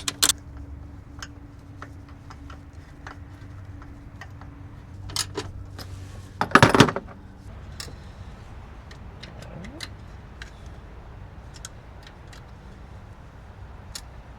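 Tools and metal parts clicking and clinking as hands work in a car's engine bay, with a louder clatter of several knocks a little after halfway.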